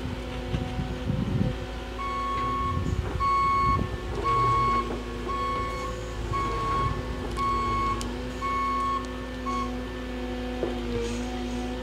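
Caterpillar 309 excavator's diesel engine running steadily, with its motion alarm beeping about once a second, eight times. The beeping starts about two seconds in and stops a couple of seconds before the end.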